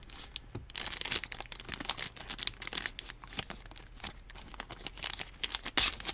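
Clear plastic bag crinkling and rustling in the hands as it is opened and a cardboard game dial is slid out, a run of irregular sharp crackles with the loudest near the end.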